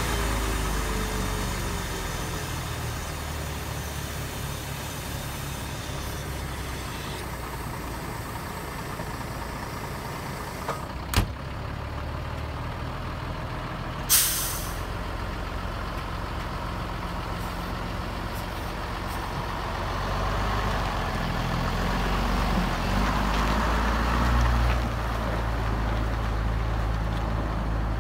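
Scania LA 82 truck's diesel engine idling steadily, with a sharp click about eleven seconds in and a short, loud hiss of air from the brakes a few seconds later. Toward the end the engine works harder as the truck pulls away.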